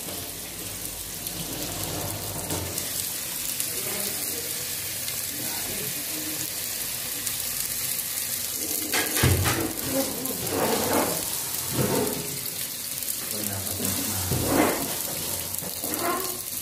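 Pork and aromatics sizzling as they are seared (sangkutsa) in a pot on the stove, with a kitchen tap running into a steel pot as vegetables are rinsed at the sink.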